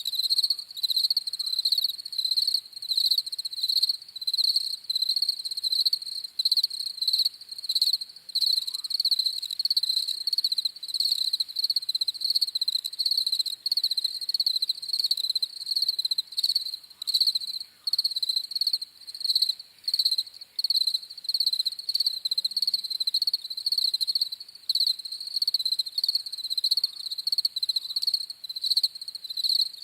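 Crickets chirping: a continuous high-pitched chirping in rapid pulses, coming in short runs with brief breaks.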